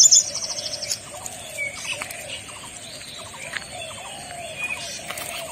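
Forest birds calling. A loud, rapid, high trill opens the moment and dies away within about a second, while a lower call repeats steadily every half second or so among scattered chirps. A thin, steady high tone runs underneath.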